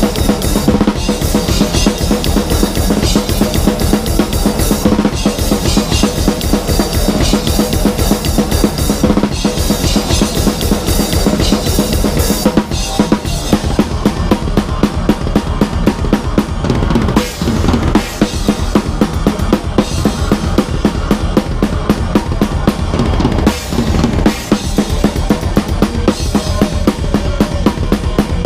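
Death metal drum kit played live at a fast tempo, close to the kit: rapid bass drum and snare strokes with cymbals, over the rest of the band.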